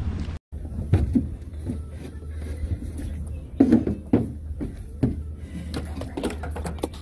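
Small boat lying still on the water: irregular knocks and clunks on the hull over a steady low hum.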